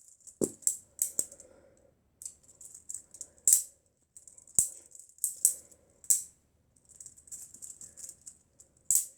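A Lego butterfly knife (balisong) being flipped: the plastic handles and blade clatter and click against each other in irregular rattling bursts, with short pauses between the flips.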